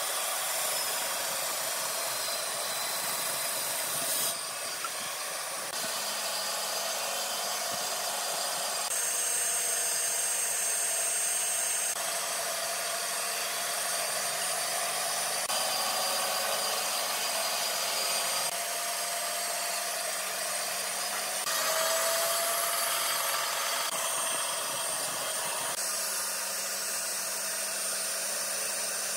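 Band saw running and cutting hardwood boards, a steady hiss of the blade through the wood over the machine's low hum, with abrupt changes every few seconds.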